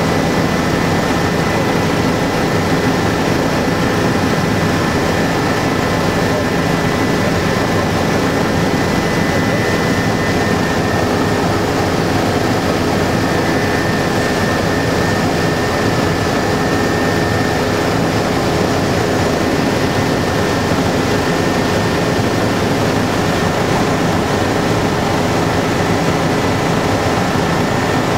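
Helicopter engine and rotor noise heard from inside the cabin: a loud, steady drone with a constant high whine over it.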